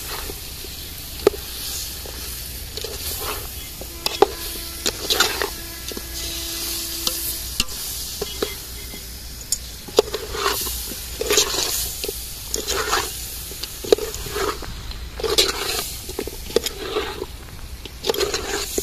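Metal ladle stirring and scraping chicken feet in onion-tomato masala in a steel pot as they fry and sizzle, with irregular scrapes and sharp knocks of the ladle against the pot.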